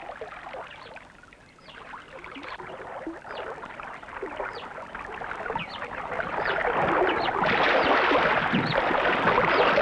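Water splashing and churning as swimming animals and a man thrash through it. It grows steadily louder and becomes heavy splashing in the second half.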